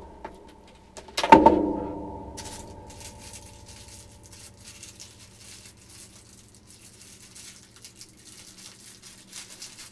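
A sharp knock about a second in that rings on briefly with a hollow, tonal ring. Then faint rustling and crinkling as small plastic-wrapped parts are handled.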